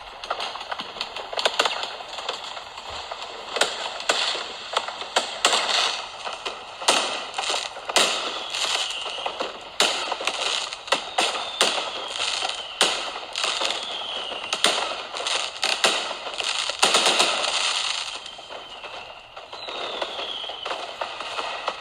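Fireworks sound effect: a dense run of sharp bangs and crackling, with a few whistles falling in pitch, and a brief lull before the bangs pick up again near the end.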